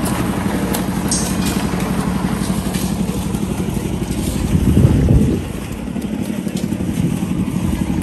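Small engine of a site concrete mixer running steadily with a fast, even pulse. It grows louder about four and a half seconds in, then drops back suddenly a little after five seconds.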